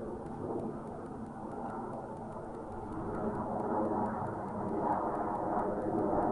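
O.S. .40 nitro glow engine of a radio-controlled model plane running steadily in flight, its buzz growing louder from about halfway through as the plane comes closer.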